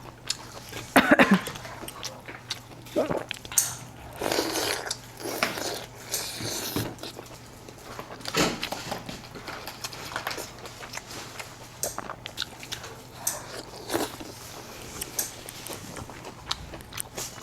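A person eating close to the microphone: irregular biting, chewing and wet mouth sounds, over a faint steady hum.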